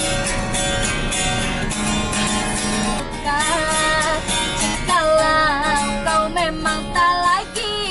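An acoustic guitar is strummed in a steady rhythm, and about three seconds in a woman starts singing along.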